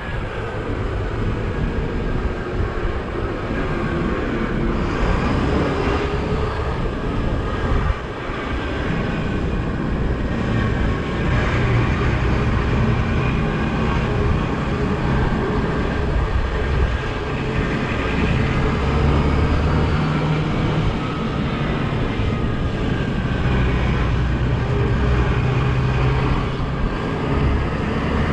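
Open-top double-decker bus's diesel engine running under way, a low drone that strengthens in stretches, heard from the open upper deck with wind and road noise over it.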